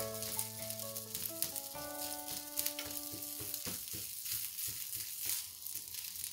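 Crumbly rice-flour dough sizzling as it cooks in a nonstick pan, stirred and scraped with a silicone spatula. There are scratchy stirring strokes, and soft background music plays until about halfway through.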